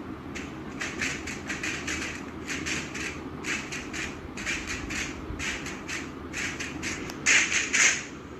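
People making repeated short breathy, hissing mouth sounds, about three a second, loudest near the end, over a steady low vehicle-like rumble.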